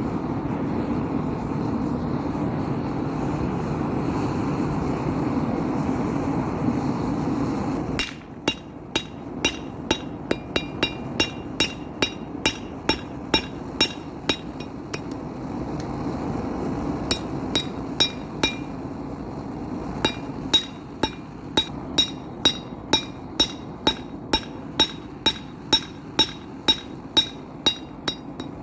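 A steady rushing roar for about eight seconds, then it cuts to a hand hammer striking hot steel on an anvil, each blow ringing, about two a second with a short pause partway through: forging a railroad spike into a knife.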